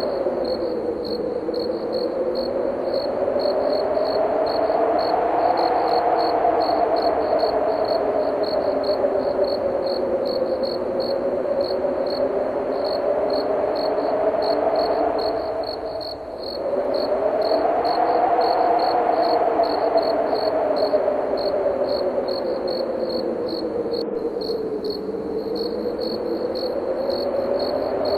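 Wind moaning in slow swells that rise and fall in pitch, easing briefly about halfway through, over crickets chirping steadily about twice a second.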